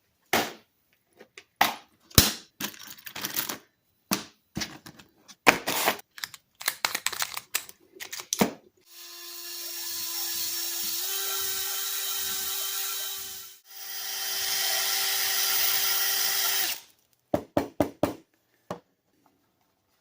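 Power drill running in two steady bursts of about four and three seconds, its pitch stepping up a little during the first, with a short stop between them. Before and after come scattered sharp knocks and clicks of tools and metal being handled.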